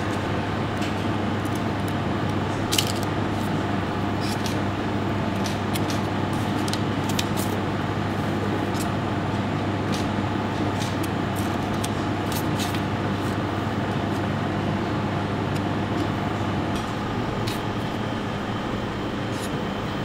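Steady hum of a professional kitchen's ventilation, with light clicks and scrapes of a knife spreading fresh goat cheese onto crisp toasted bread slices; a sharper click about three seconds in.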